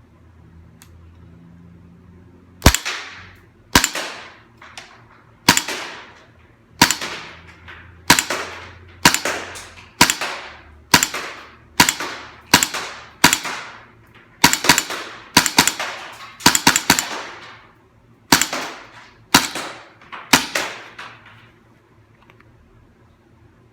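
Airsoft FNX-45 gas blowback pistol with a mock suppressor firing about twenty single shots, each a sharp crack with a short decaying tail. The shots come roughly one a second, speeding up a little in the middle of the string.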